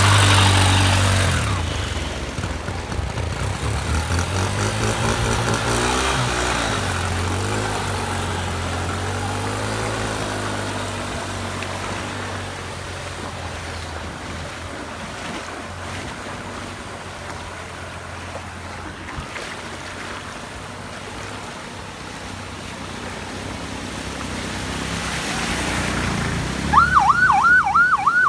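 A motorcycle engine runs as the bike ploughs through deep floodwater close by, loudest at the start, then fades as the bike moves off, leaving the wash of water. Near the end, a Toyota LiteAce van pushes through the flood and its fast yelping siren starts, cycling about four times a second.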